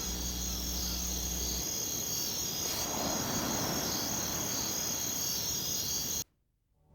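Steady outdoor insect chorus, crickets or cicadas, trilling without a break. It cuts off suddenly near the end.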